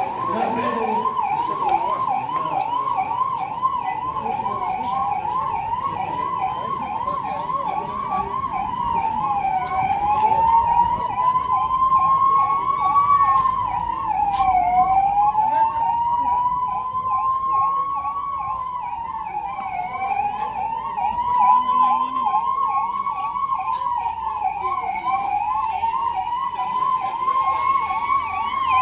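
Two emergency-vehicle sirens sounding together: one in a fast up-and-down yelp, the other a slow wail that rises and falls about every five seconds.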